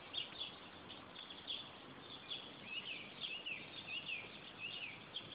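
Small birds chirping, a steady scatter of short high chirps, several sliding down in pitch, over faint outdoor background hiss.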